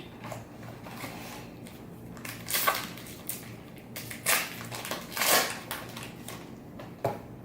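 Packaging of a trading-card box and its wrapped packs crinkling and tearing as they are opened, in about four short bursts, the loudest near the middle.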